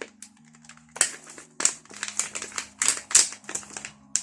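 Plastic sweet bag being opened and handled, crinkling in irregular bursts, loudest about one, two and three seconds in.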